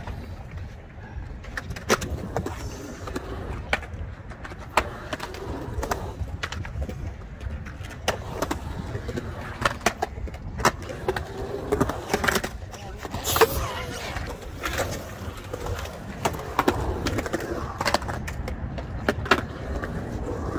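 Skateboard wheels rolling on the concrete of a skatepark bowl, a steady low rumble broken by many sharp clacks of the board hitting the concrete. The loudest clack comes about 13 seconds in.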